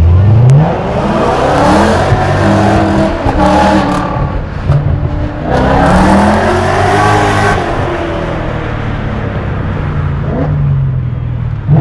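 BMW E39 M5's V8 engine through an Eisenmann exhaust with an X-pipe, accelerating hard twice with the pitch climbing in steps through the gears, then running at a steadier, lower pitch near the end. Heard from inside a car's cabin.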